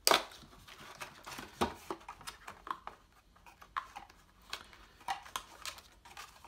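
A paperboard trading-card kit box being handled and opened: a sharp knock at the start, then the flap and card stock scraping and rustling, with scattered light clicks.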